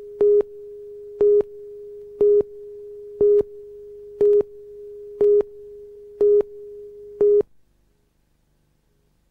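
Videotape countdown leader: a steady line-up tone with a louder beep of the same pitch once a second, eight beeps in all, the whole signal cutting off suddenly about seven and a half seconds in.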